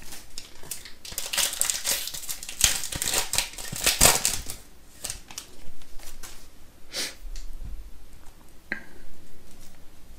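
Wrapper of a trading card pack being torn open and crinkled, with a sharp tear about four seconds in. After that, softer rustles and clicks as the cards are slid out and handled.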